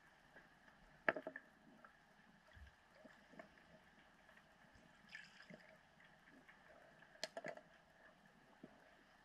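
Faint underwater recording: scattered sharp clicks and ticks in short clusters, the loudest about a second in and another cluster about seven seconds in, with a brief hiss around five seconds, over a faint steady hum.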